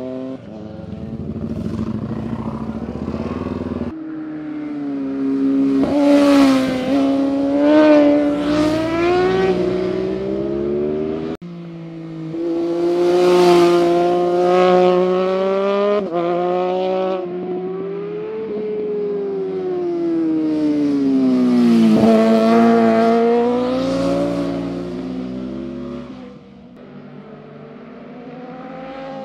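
Motorcycles ridden hard through canyon corners, their engines revving up and dropping back with throttle and gear changes as each one passes. The sound breaks off abruptly a few times between passes.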